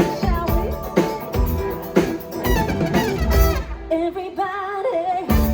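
Live Latin pop band playing with a singer, drums hitting about once a second. About three and a half seconds in, the drums and bass drop out, leaving the voice held with vibrato before the full band comes back in near the end.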